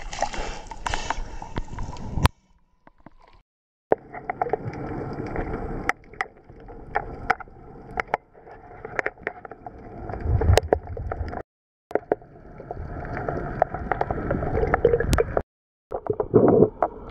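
Water splashing at the surface, then, with the microphone underwater, muffled gurgling and sloshing with scattered sharp clicks. The sound cuts out briefly a few times.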